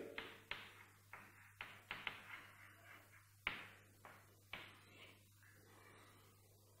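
Chalk on a blackboard: faint, irregular taps and short scrapes as a word is written and a box is drawn around it.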